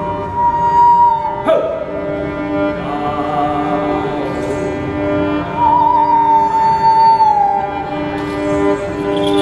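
Live music: a high, sustained melody line that glides slowly between held notes with a wavering vibrato, over steady lower drone tones. A sharp click with a quick downward swoop comes about a second and a half in.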